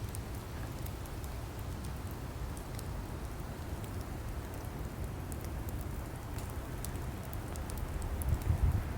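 Burning wood logs crackling: scattered sharp pops and snaps over a steady low rumble of flames, the rumble swelling louder near the end.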